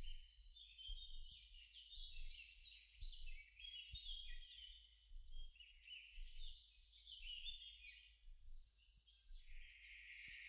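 Faint, continuous twittering of small birds, many short chirps overlapping and hopping up and down in pitch.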